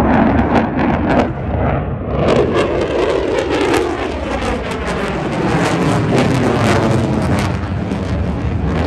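Loud jet noise from a Lockheed Martin F-35A's single F135 engine at high power as the jet passes and pulls up into a steep climb. There is a ragged crackle, and from about two seconds in the pitch sweeps steadily down.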